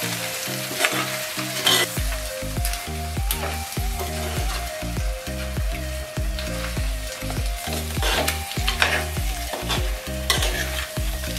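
Crab pieces in pepper masala sizzling in a clay pot while a metal spoon stirs them, with repeated scrapes and clicks of the spoon against the pot. Background music plays under it, a bass line coming in about two seconds in.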